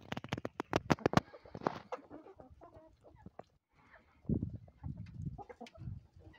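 A flock of chickens clucking softly while they peck at scattered bulgur, with a quick run of sharp beak taps on the hard ground near the start. A few dull low thumps come in the second half.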